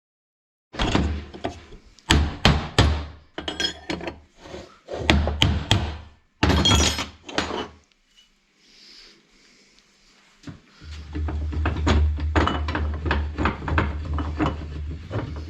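Irregular knocks, clanks and hammer-like strikes of tools on the metal parts of a tractor's brake assembly being dismantled. A quieter gap of a few seconds midway, then a denser run of knocks.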